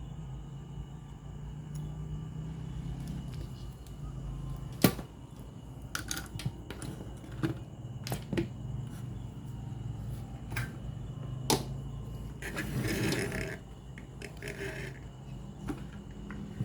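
A steady low hum with scattered sharp clicks and knocks, as of small objects being handled, and a short rustle about twelve seconds in.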